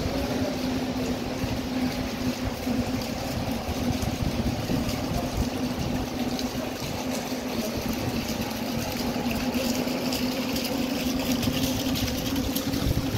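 A motor running steadily with a constant hum, over the hiss of rain and water on a flooded street.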